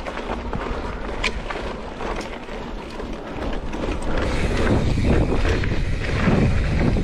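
Wind rushing over the microphone and mountain bike tyres rolling over a dirt trail while riding downhill, with a sharp click about a second in; the noise grows louder from about four seconds in.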